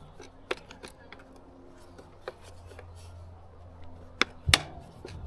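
Scattered metallic clicks and knocks of bolts and hand tools being handled while an outboard motor is taken apart, with the loudest clacks near the end over a faint low hum.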